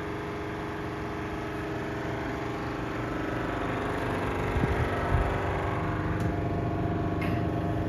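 Hotel room's wall-mounted air conditioner running with a steady, really loud hum and whir that slowly gets louder. A couple of low thumps come about midway.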